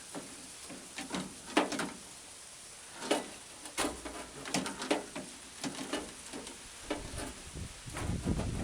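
Irregular short scrapes, clicks and rustles of a felt window-channel seal and its metal track being pushed and bent into place inside a truck door, with a low rumble near the end.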